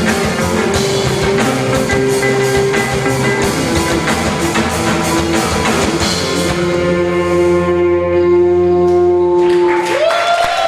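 Rock band playing live with drums and electric guitar. The drums stop about seven seconds in while a final chord is held and rings out, and a gliding tone comes in near the end.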